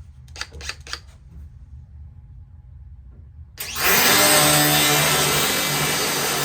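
A few light clicks, then a handheld power tool starts up suddenly about three and a half seconds in and runs loudly and steadily.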